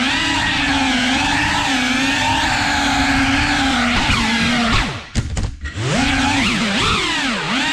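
Small FPV quadcopter's electric motors and propellers whining, the pitch rising and falling with the throttle. About five seconds in the whine drops away briefly, with a few clicks, then comes back up.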